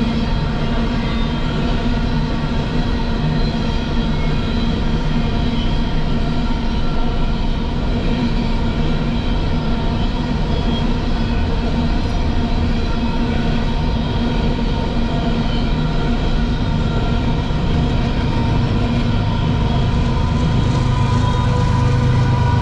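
Coal hopper cars of a Union Pacific freight train rolling steadily past on the rails. Near the end, a low diesel locomotive engine sound grows louder as a locomotive at the rear of the train approaches.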